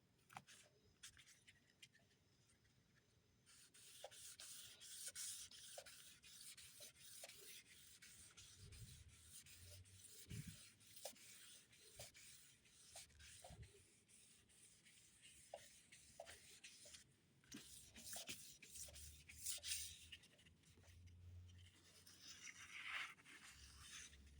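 Hand sanding of a Camaro's rear bumper with sandpaper: a faint, scratchy rubbing in quick, uneven back-and-forth strokes that starts a few seconds in.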